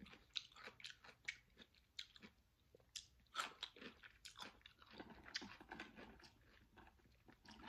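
Faint chewing of crunchy raw cucumber: a string of irregular short crunches and clicks.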